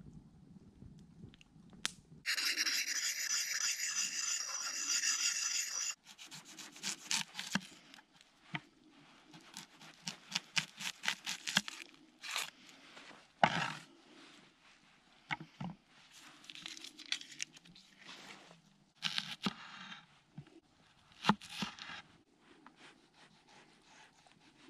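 A small axe's blade slicing onion and tomato on a wooden cutting board: a run of short crisp cuts and knocks of the blade on the board, some in quick even runs, others single. Near the start comes a loud steady rasping sound lasting about four seconds.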